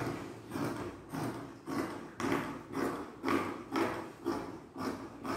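Large fabric shears cutting through fabric in a steady run of snips, about two a second.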